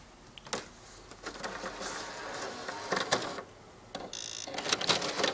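PlayStation 3 disc drive making a strange mechanical whirring and clicking as it fails to read a disc. Sharp clicks come about three and five seconds in, and a short buzzing tone sounds a little after four seconds.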